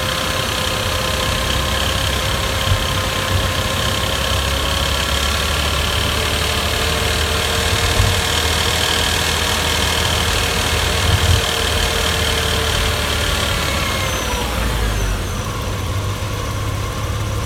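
Porsche Boxster S (986) 3.2-litre flat-six engine running steadily; about fourteen seconds in its pitch falls as the revs drop.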